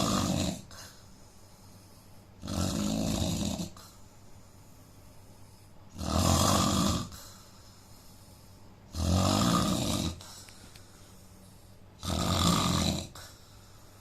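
A man snoring in a slow, even rhythm, one loud snore about a second long roughly every three seconds, five in all. The uploader puts the snoring down to a problem with his nose.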